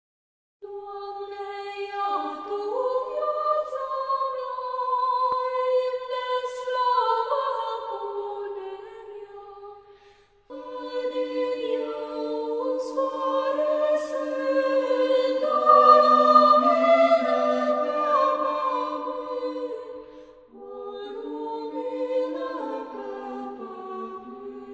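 A choir singing a hymn in parts, sustained notes in three long phrases with brief breaths between them.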